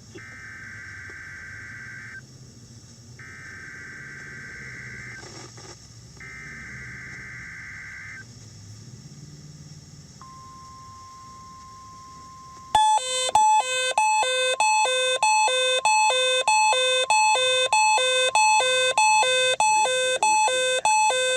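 NOAA Weather Radio SAME data header sent three times, each a raspy electronic buzz of about two seconds with a short gap between. A faint steady warning tone follows about ten seconds in. About thirteen seconds in, the Midland ER-102 weather radio's own alarm comes in loud: rapid beeping that alternates between two pitches and cuts off at the end. Together these are the alert sequence that marks an incoming Required Weekly Test.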